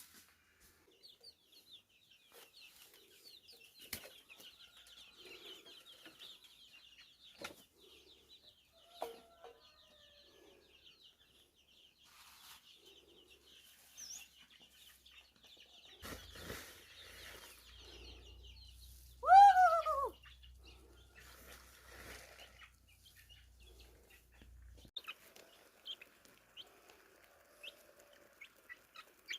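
Chickens clucking, with one loud call that falls in pitch, about a second long, a little past the middle. A steady high-pitched chirring runs through the first half, with scattered small clicks.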